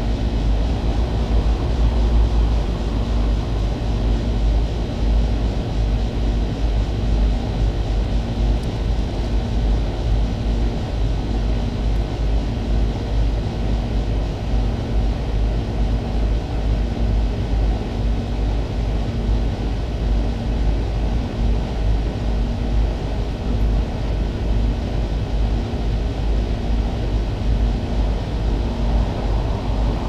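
Two Goodman air-conditioner condensing units running together: a steady low hum and rumble, with a faint tone in it that pulses evenly about once a second.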